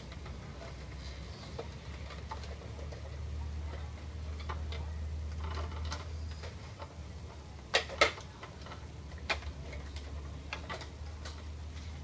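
Plastic parts of an opened Epson L210 printer being handled: scattered light clicks and taps, with two sharp clicks in quick succession about two-thirds of the way through and another a second later, over a low steady hum.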